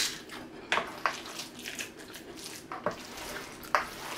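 Wooden spoon stirring thick chicken salad in a bowl: a series of short, irregular wet squishes and scrapes.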